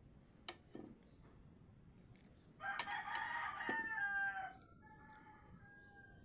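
A rooster crows once: a loud pitched call of about two seconds starting near the middle, trailing off into fainter tones. A sharp click comes about half a second in.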